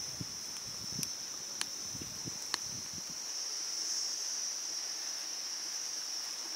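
Steady high-pitched drone of insects chirring, even and unbroken, with a few sharp clicks in the first half.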